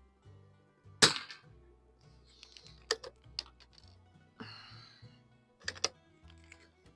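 A single .22 LR shot from an Anschutz Match 54 bolt-action target rifle about a second in: a sharp crack with a short ring. Then come a series of metallic clicks and short sliding scrapes as the bolt is worked to eject and reload. Soft background music plays under it.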